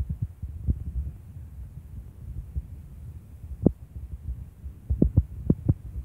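Wind rumbling on a phone's microphone, with a few sharp knocks: one near the start, one just under a second in, one near four seconds, and a quick run of four near the end.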